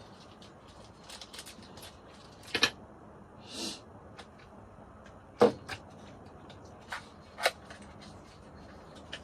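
Scattered clicks and light knocks of small hard objects being handled: drawer knobs and screws picked up and set down. There is a brief rustle a few seconds in, and the sharpest knock comes about halfway through.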